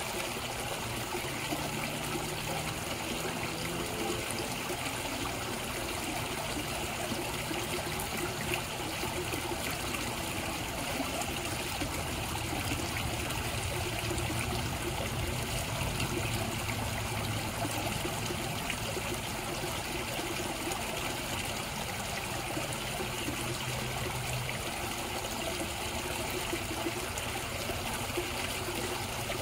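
Koi pond water trickling and splashing steadily.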